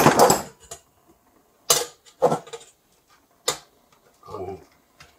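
Short clicks and clatters of metal on metal, five or six of them spaced out with gaps, the last one duller: a small watch vise being handled and opened, with a steel ruler and a watch case knocking against it.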